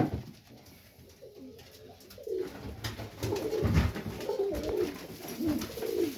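Domestic pigeons cooing, starting about two seconds in and running on in a low, wavering warble. A single sharp knock sounds at the very start.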